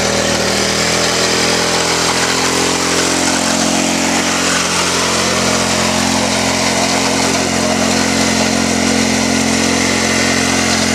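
Small petrol engine of a stand-on motorised cart running at a steady speed, with a slight shift in pitch about three seconds in.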